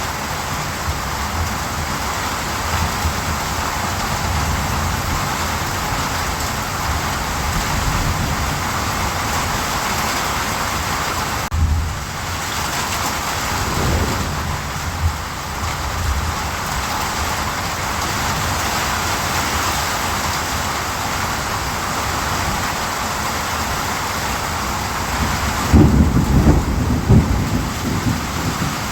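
Steady rain falling, with low rolling rumbles of thunder underneath; the strongest rumble comes near the end.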